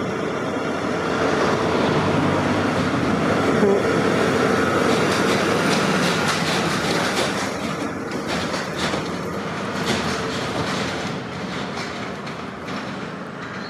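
Deutz-Fahr tractor engine running at road speed as it approaches, passes and pulls away, its sound fading in the last few seconds. A livestock trailer in tow rattles and clatters behind it as it goes by.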